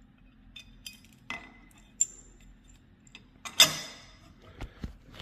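Metal lock parts and screws being handled: a run of small clicks and clinks, with a sharp ringing clink about two seconds in and a heavier clatter about three and a half seconds in.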